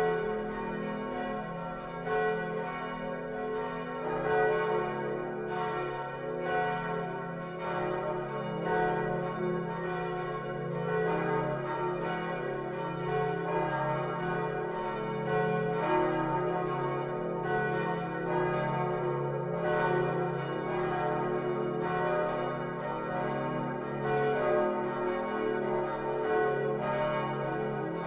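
Many swinging church bells of the Utrecht Dom tower, among them the great bronze Van Wou bells cast in 1505, ringing together as the full peal. Strikes from the different bells overlap without a break, over a deep hum from the largest bells.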